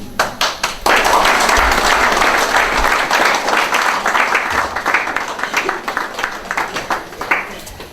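Congregation applauding: a few separate claps, then full applause about a second in that gradually thins out toward the end.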